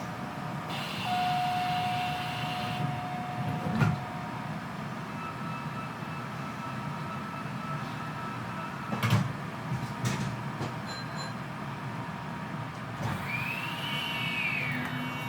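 Kita-Osaka Kyuko 9000 series subway car at a station stop: two heavy clunks, the first about four seconds in as the doors shut. Near the end the Toshiba IGBT VVVF inverter starts up with a tone that rises and then falls, and a low motor tone from the permanent-magnet synchronous motors comes in as the train begins to pull away.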